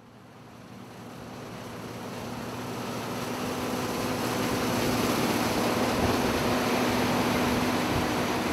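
John Deere combine harvester running as it cuts wheat: a steady mechanical drone and rush with a low hum. It swells up from silence over the first few seconds, then holds steady.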